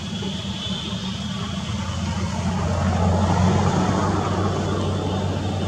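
A motor vehicle engine humming steadily, growing louder about halfway through and then easing a little, as if passing by.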